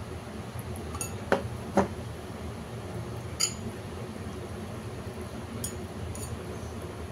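A metal spoon clinking and knocking against a small glass bowl about six times while a sauce mix is stirred. The two loudest knocks come about one and a half seconds in, over a steady low hum.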